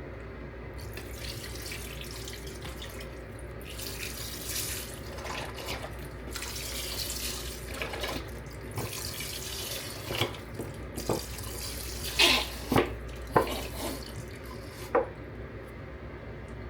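Water running from a kitchen tap into a sink, unevenly, with a few sharp clatters in the second half, the loudest about twelve seconds in.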